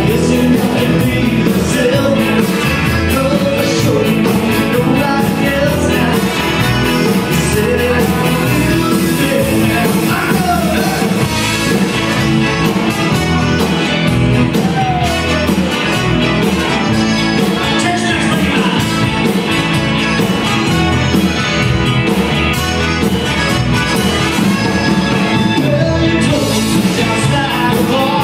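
Live band playing an upbeat Tex-Mex rock and roll number: drums, electric guitar, button accordion and keyboard, with a lead vocal sung over them.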